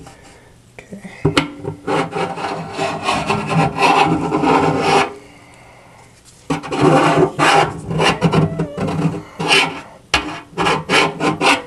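A screwdriver tip scraping around the inside lip of a new stainless steel sink drain strainer, clearing off excess plumber's putty. The rasping strokes come in two long runs separated by a pause of about a second and a half, then turn into quicker short strokes near the end.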